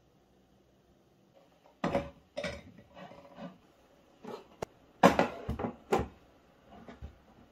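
Ceramic bowls knocking and clinking as a hand sets them down and shifts them on a kitchen cabinet shelf: a string of sharp clatters, the loudest a little past the middle.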